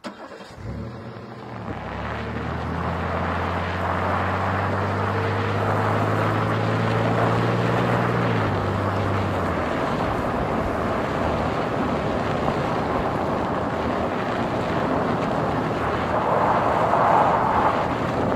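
Car driving on a dirt track, heard from inside the cabin: a steady engine hum for about eight seconds that drops away about nine seconds in. Under it runs a steady noise of tyres on the dirt and wind, which grows louder near the end.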